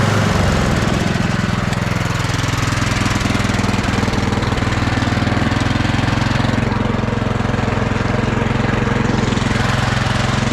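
Small lawn-mower and garden-tractor engines running steadily, towing a converted push mower along.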